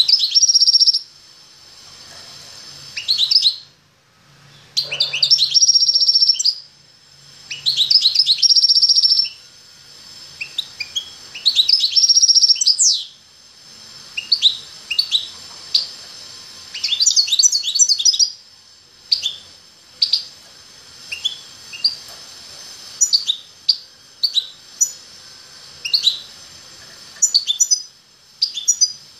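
Caged male finch singing: short, loud phrases of rapid high trills that end in a flourish, repeated every few seconds, with shorter separate chirps in the second half.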